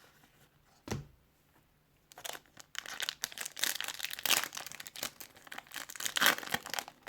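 Plastic wrapper of a hockey card pack being torn open and crinkled, a dense irregular crackle that starts about two seconds in. It is preceded by one soft knock about a second in.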